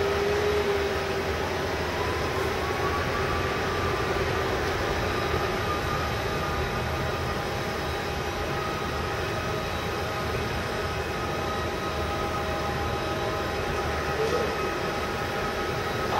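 Boeing 777 twin jet engines running on the runway. A steady jet rumble carries a thin whine that rises slightly in pitch a few seconds in.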